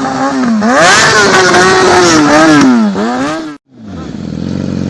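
Yamaha R6's inline-four engine being revved in quick blips, then rising about a second in, held up and falling back. Near the end the sound cuts off abruptly and resumes as a steady idle.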